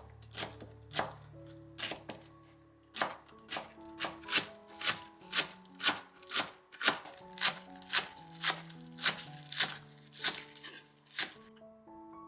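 Knife chopping food on a cutting board in steady strokes, about two a second, stopping near the end, over soft background music.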